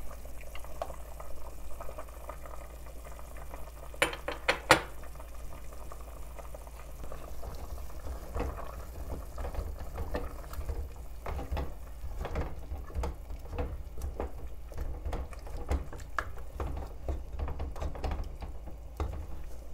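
A wooden spoon stirring a pot of chunky lamb-and-chickpea stew as it simmers, with wet sloshing and small ticks. There are a few sharp knocks of the spoon about four seconds in, and the stirring grows busier from about halfway through.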